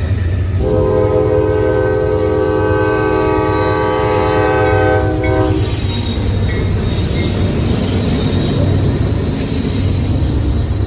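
Diesel locomotive horn sounding a chord of several notes for about five seconds, then cutting off, over the steady low rumble of the train running.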